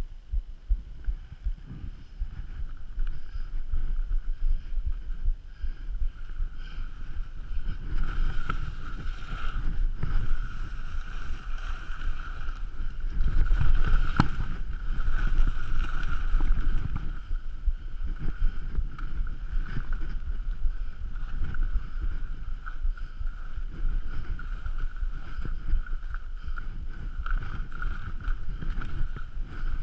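Wind buffeting a GoPro microphone as a skier descends, with skis sliding and scraping over snow; the rumble swells and is loudest about halfway through. A steady faint whine runs underneath.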